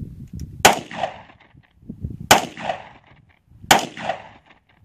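Three single pistol shots from a 9mm semi-automatic handgun, about a second and a half apart, each followed by a short echo.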